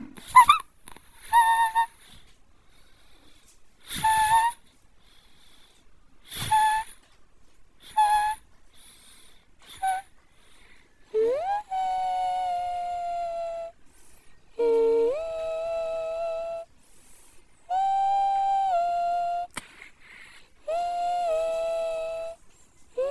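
A high-pitched voice-like sound: about six short squeaky calls spaced a second or two apart, then four long held humming notes, each sliding up at the start and then stepping in pitch.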